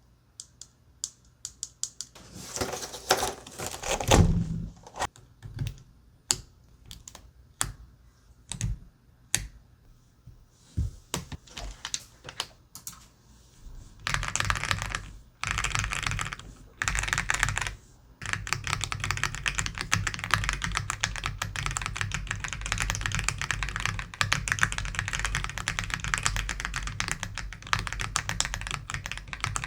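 Keyboard fitted with soft silicone jelly keycaps being typed on: scattered single keystrokes at first, then fast, continuous typing from about halfway through.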